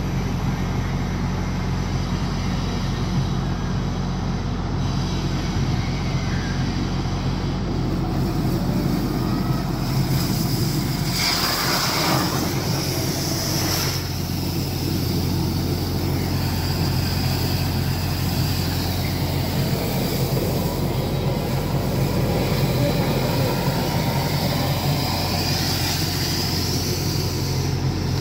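Sewer jetting truck's engine running steadily, driving its high-pressure water pump while a grease-blocked drain line is jetted. About eleven seconds in, a hiss of water spraying out of the open manhole is heard for a few seconds over the engine.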